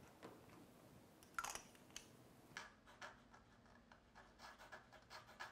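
A single light knock, then a flexible gold fountain pen nib scratching faintly across paper in a run of short strokes as someone writes in cursive.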